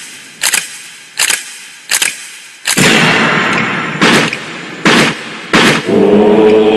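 Film soundtrack: a run of sharp, gunshot-like bangs, one about every three-quarters of a second, with a loud noisy wash under them from about three seconds in. Near the end, music with a held chord takes over.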